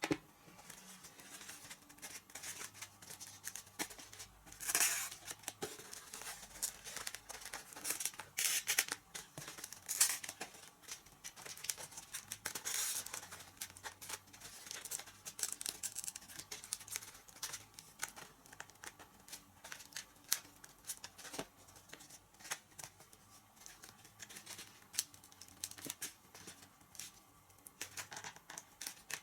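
Hands working with small plastic and foam model-plane parts: scattered sharp clicks and taps, with a few short rustling, scraping or cutting noises.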